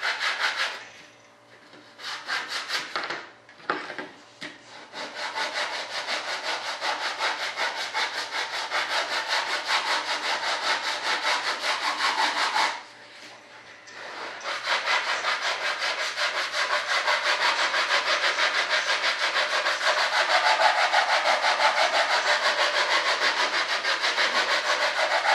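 Coarse 36-grit sandpaper rubbed back and forth in quick, even strokes over a filled and primed model-airplane part, flattening it. The strokes pause briefly about a second in and again about halfway through.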